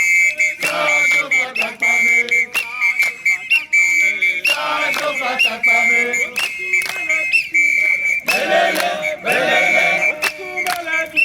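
A group of voices singing and chanting together, with a whistle blown over them in repeated short, rhythmic blasts.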